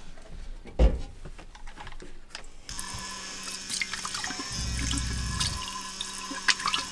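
Water running from a tap into a sink, starting about three seconds in, over a steady low hum, after a sharp knock near the start.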